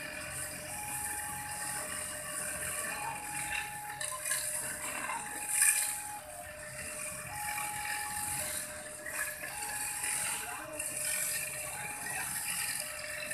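A railway level-crossing warning alarm sounds a slow two-tone signal, a higher and a lower tone alternating at about a second each, which warns that the barrier is down for an approaching train. Light rattling runs under it, with one louder knock about halfway through.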